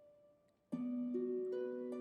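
Background music: gentle plucked-string notes, harp-like, that begin about two thirds of a second in after a brief lull and build into a held chord.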